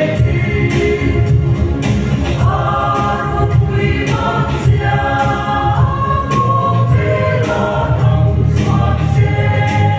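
Mixed choir of men and women singing a Mizo gospel song in parts, holding long notes.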